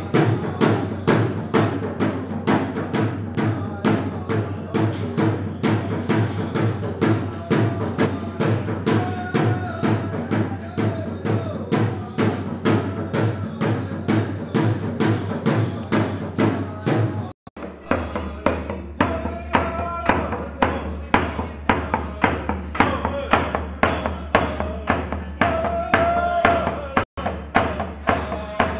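Drums beating a fast, steady rhythm for the hand game, with voices singing over the beat in places. The sound briefly drops out twice, the first time about two-thirds in.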